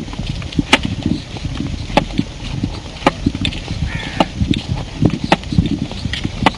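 Walking sounds from a group on foot: a sharp tap about once a second over the low scuffing of footsteps, with a brief high chirp about four seconds in.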